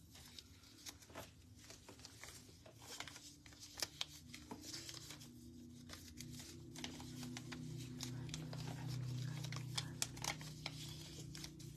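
Faint rustling and handling noise: cloth rustling and scattered small clicks as a hand-held phone is moved about, with a low steady hum coming in about four seconds in.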